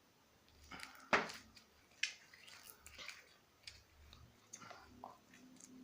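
Slime being mixed and handled by hand: scattered sticky clicks and small taps, the loudest about a second in.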